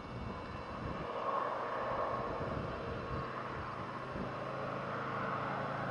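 A road vehicle drawing near on the highway, its tyre noise growing louder, with a steady low engine hum joining about halfway through.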